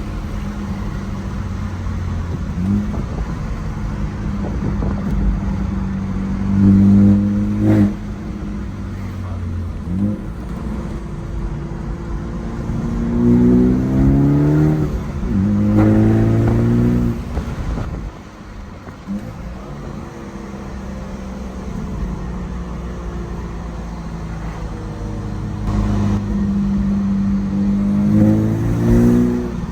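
BMW 428i with an AWE axle-back exhaust driving. Its exhaust note holds steady for long stretches and rises in pitch under acceleration several times, dropping back at each shift.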